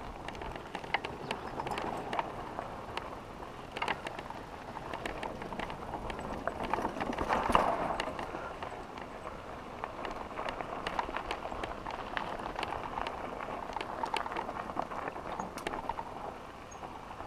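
Mountain bike rolling over a dry, stony dirt singletrack: tyres crunching on loose gravel, with frequent small clicks and rattles from the bike. There is a louder stretch about seven seconds in.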